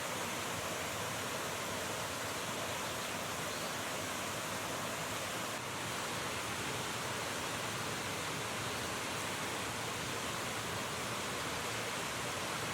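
River water rushing, a steady unbroken noise.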